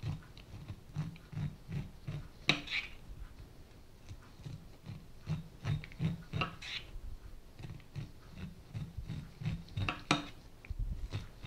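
Non-serrated kitchen knife slicing kernels off a cooked ear of corn on a plastic cutting board, an irregular run of short cutting and scraping sounds with a few sharper clicks.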